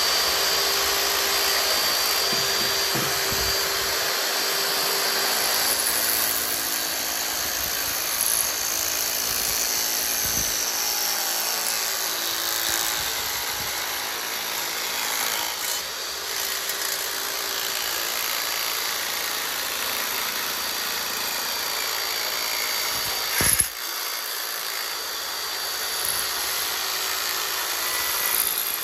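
Handheld electric sheet-metal shear running steadily with a high motor whine as it cuts along a marked line in a curved sheet-metal piece, shedding a curled scrap strip. One sharp clack about three-quarters of the way through.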